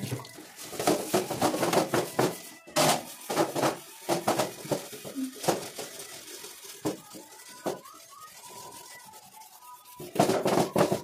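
Steel-wool scrubber rasping back and forth over a soapy stainless-steel rack in quick, uneven strokes, easing off for a few seconds after the middle and picking up again near the end.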